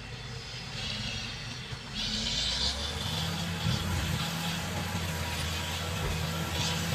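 Caterpillar D7G bulldozer's diesel engine running steadily, growing louder and heavier about two seconds in as it works. Short bursts of higher-pitched noise come in over it, around two seconds in and again near the end.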